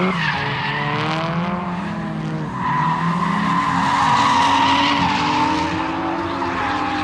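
Drift cars sliding on track: engines revving up and down, with tyre squeal and skidding that peaks in the middle.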